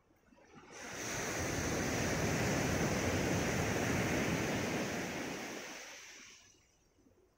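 Sea waves breaking and washing up the gravel shore: a broad rushing swell that builds about a second in, holds for a few seconds and fades away.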